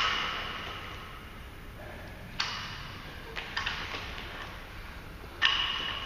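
A barbell loaded with plates clanking as it is driven overhead and lowered. Four sharp metallic clanks, each ringing on and echoing in a large empty hall.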